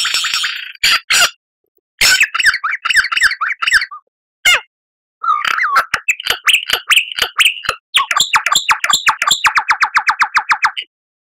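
Lyrebird singing a varied run of loud whistled and chattering phrases, broken by short silent gaps. Near the end it goes into a fast, even series of about ten repeated notes a second.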